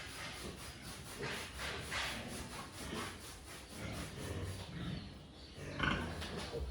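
A pig grunting in irregular short bursts, the loudest one near the end.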